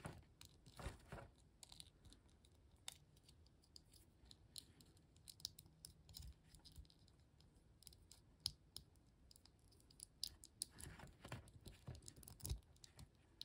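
Faint, scattered clicks and scrapes of a small plastic Transformers BotBots toy being turned and fitted together by hand.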